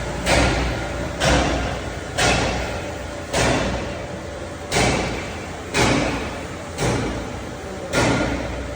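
A series of heavy knocks, about one a second, each with a sharp start that dies away over half a second, over a steady low hum.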